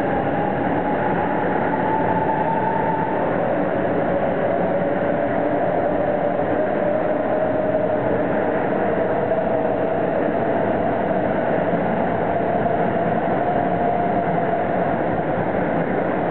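500 series Shinkansen pulling out and passing at low speed: a steady rumble of the cars on the track with the traction motors' whine over it. The whine rises, drops abruptly about three seconds in, then climbs slowly again as the train accelerates.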